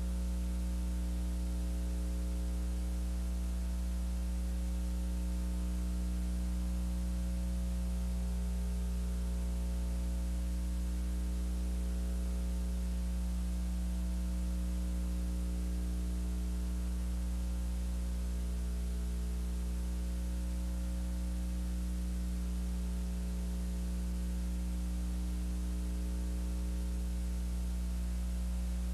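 Steady electrical mains hum with a layer of hiss, unchanging and with nothing else over it: the blank soundtrack under a silent film.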